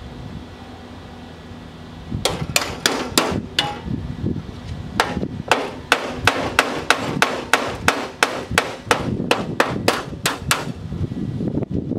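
A hammer striking sheet steel with sharp, ringing metallic blows. About two seconds in comes a quick cluster of about five strikes, then after a short pause a steady run of roughly three strikes a second that stops near the end.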